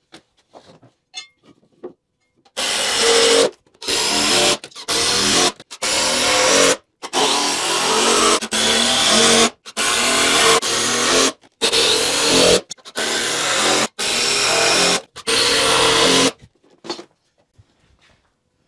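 Power drill driving screws into wood in about a dozen short runs of a second or so each, the motor's pitch stepping down as each screw bites, fastening a 4x4 leg to a 2x4 floor frame.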